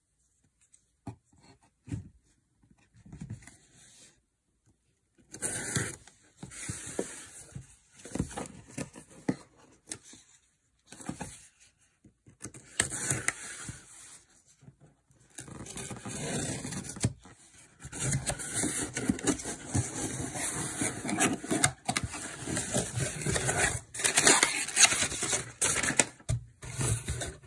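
Hands handling a cardboard shipping box: peeling paper sticky notes off it and pulling open the cardboard flaps, a run of scraping, rustling and tearing sounds with sharp clicks. Sparse at first, then nearly continuous and louder in the second half.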